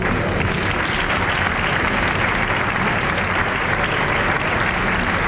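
Audience applauding: steady clapping that breaks out at the start and carries on without letting up.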